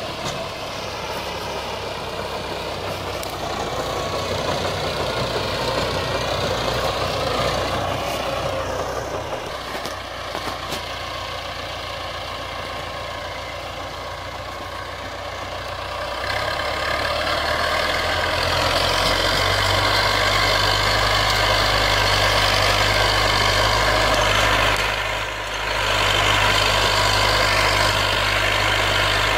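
IMT 577 tractor's diesel engine running steadily under load while it drives a Maschio 2.5 m rotary power harrow through the soil. It grows louder and deeper about two-thirds of the way in as the tractor comes closer.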